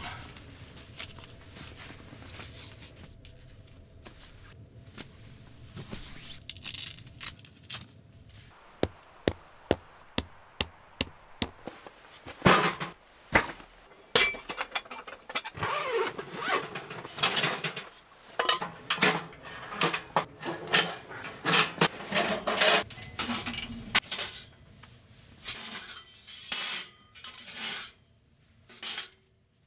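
A quick run of sharp, evenly spaced ticks, about four a second, then from about halfway a busy clatter of metal on metal: steel stovepipe sections of a tent wood stove knocking together as they are handled and fitted.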